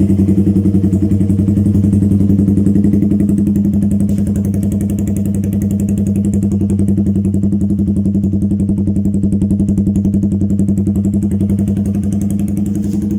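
Motorcycle engine idling steadily through an aftermarket SC Project GP-type canister exhaust with its silencer insert removed, with an even, rapid exhaust pulse. At idle it is not too loud or rowdy.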